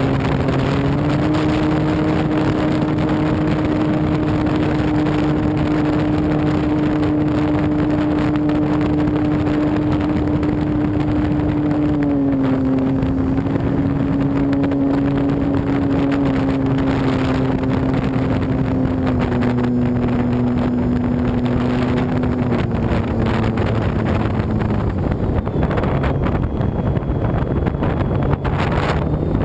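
Electric brushless motor (Turnigy Park 480, 1020KV) spinning the propeller of an RC Piper J-3 Cub, heard from a camera on the plane, with heavy wind rush over the microphone. The motor's steady whine steps down in pitch a few times in the second half and fades out about 25 seconds in as the throttle is cut, leaving wind rush while the plane glides.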